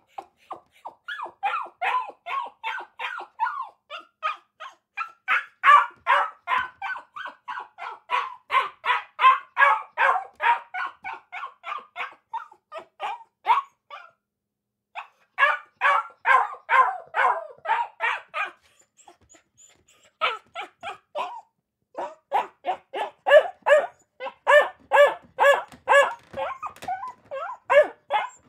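Akita puppies barking in rapid, high-pitched yapping runs, several barks a second, with short pauses of quiet between runs.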